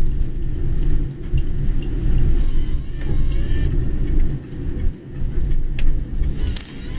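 Car on the move, a loud low rumble of road and engine noise that swells and dips, with a few sharp clicks in the last couple of seconds.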